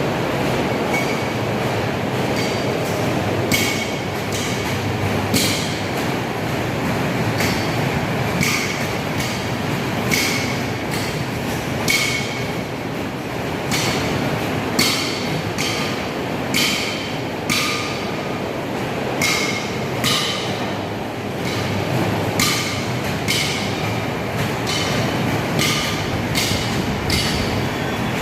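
Electric amusement-park ride-on train running on its track: a steady rumble with sharp metallic clicks about once a second, unevenly spaced, some with a short ring.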